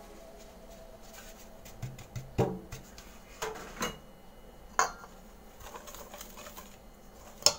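A wire whisk clinking and knocking against a stainless steel mixing bowl while flour is stirred into batter. The clinks are irregular and spaced out, about seven in all, with the loudest about two and a half seconds in and another just before the end.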